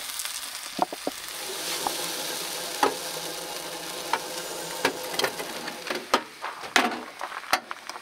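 Shredded hash browns sizzling in a hot frying pan on a camp stove, a steady hiss that dies down after about six seconds. Several sharp clicks and knocks come through it.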